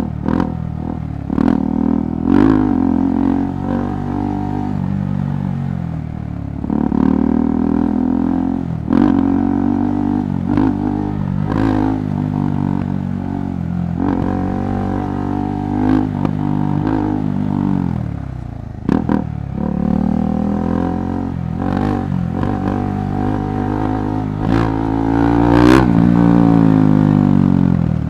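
KTM 390 Adventure Rally's single-cylinder engine being ridden off-road, the revs climbing and dropping again and again as the throttle is opened and closed, with sharp knocks here and there over the rough trail.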